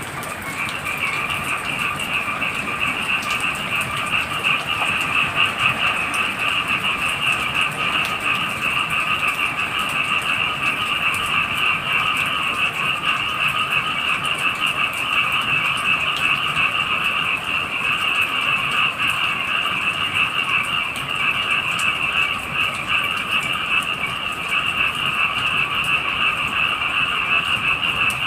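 Dense chorus of frogs calling, a fast trilling pulse in two steady pitches, a higher and a lower, over falling rain; the chorus swells about half a second in.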